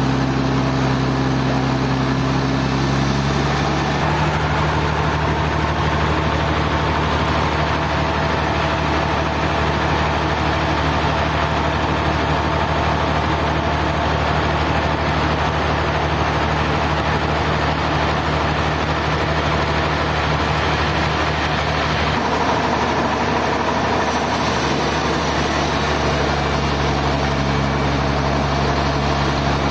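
Sawmill machinery engine running steadily. Its note shifts a little about four seconds in and changes back roughly twenty-two seconds in.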